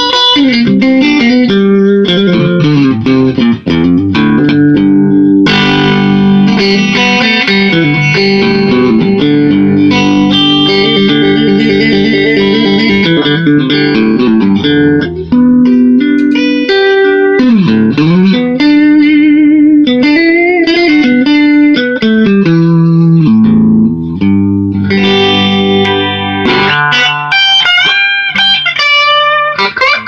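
Custom-built Telecaster electric guitar with hot humbucker–single-coil–humbucker pickups, played through a small combo amp. It plays chords and lead lines with sustained notes, bends and vibrato.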